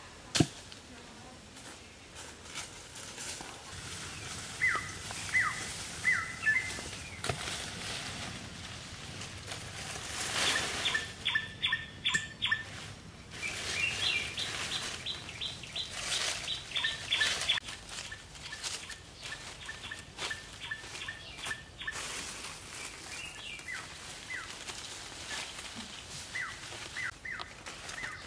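Forest birds calling: short downward-sliding chirps and fast runs of repeated high notes. Under them, leafy branches rustle and twigs crackle as they are handled, and there is one sharp knock just after the start.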